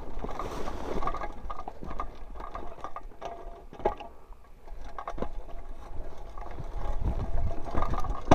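Mountain bike rolling down a rough dirt single track: the rear hub's freewheel ratchet clicking, with rattles and knocks from the bike over the bumps. A low wind rumble on the microphone grows stronger near the end.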